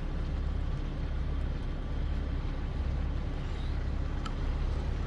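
Steady low rumble of an idling engine, with a couple of faint clicks near the end.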